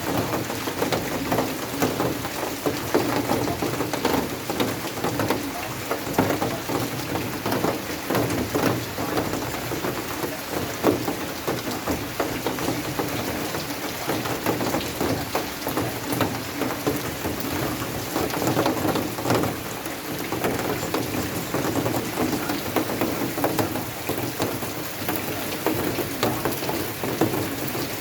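Rain falling steadily, a dense patter of drops hitting surfaces.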